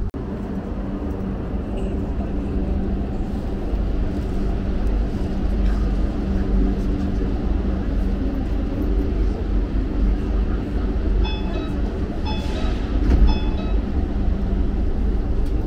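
Shiraz metro train running: a steady low rumble with an electric motor hum. A run of short, high electronic beeps sounds about eleven seconds in.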